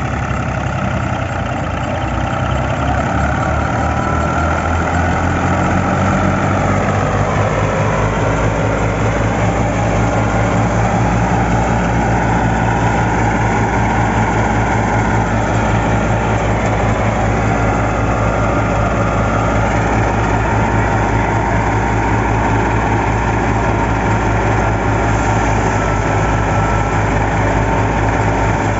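1978 Fiat 480 tractor's three-cylinder diesel engine running under load, turning a wheat threshing machine through its PTO shaft. The thresher's drum whirs along with it. The pitch rises over the first several seconds as the machine comes up to speed, then holds steady.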